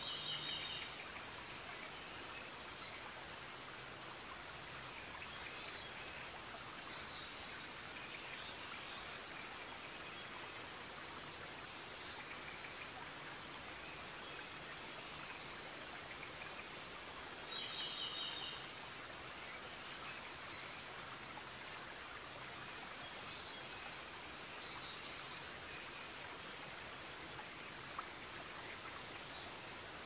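Forest ambience: wild birds giving short high chirps and a few quick trills every second or two over a steady background hiss like running water or rain.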